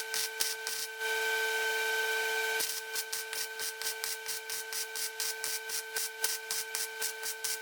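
Power tool working steel plate, its motor giving a steady whine while its rasp pulses about five times a second, with an unbroken stretch of rasping about a second in.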